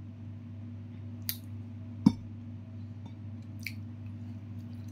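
Eating fried chicken: a few short crisp crunches and one sharp knock about two seconds in, over a low steady hum.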